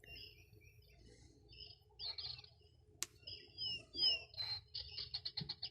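Small bird chirping in the background: short high chirps and sweeping notes, then a rapid trill near the end. A single sharp click comes about three seconds in.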